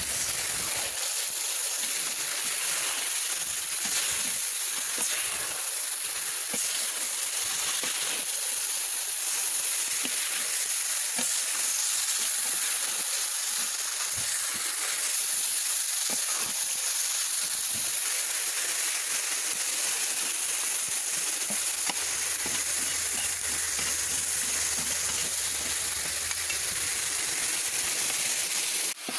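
Julienned carrots with beef and onions frying in hot oil in a cast-iron kazan, a steady loud sizzle with fine crackling. This is the carrot-frying stage of the zirvak for plov.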